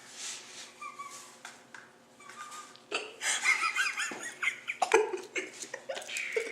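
Two men giggling and stifling their laughter, faint at first and louder from about halfway in.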